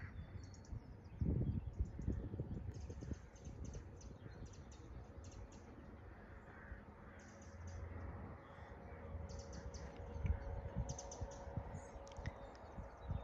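Birds calling in the dawn chorus: many short, high chirps scattered throughout, over a low rumble on the microphone that swells about a second in and again near the end.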